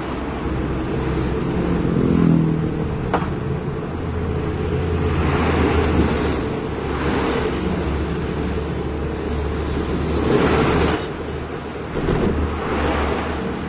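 Road vehicle driving along with a steady low engine hum, and a loud whoosh of traffic every few seconds as oncoming trucks and buses pass close by.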